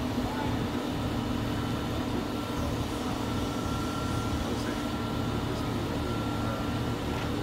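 Crane's diesel engine running steadily while it holds a suspended load, with a thin steady whine joining about three seconds in.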